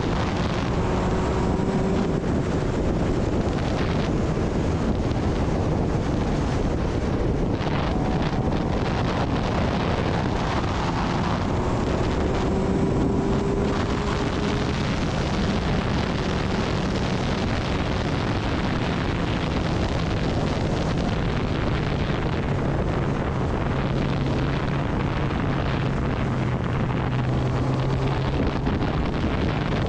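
Heavy wind noise rushing over the microphone of a Kawasaki Ninja ZX-10R riding at speed, with the bike's inline-four engine note faint and steady beneath it.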